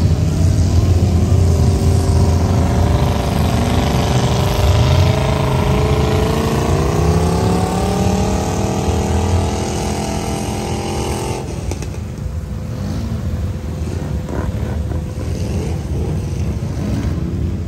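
An off-road vehicle's engine revving hard, its pitch climbing slowly over several seconds. About two-thirds of the way through the higher engine sound cuts off abruptly, leaving a quieter, lower engine sound.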